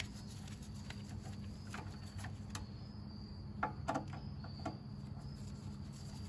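Scattered light clicks and taps of a T20 Torx driver working screws loose, most of them between about two and five seconds in, over a steady low hum and a faint high whine.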